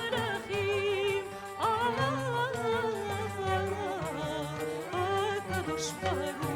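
A solo voice singing long, ornamented melodic phrases with wide vibrato and slides between notes, over low sustained instrumental accompaniment.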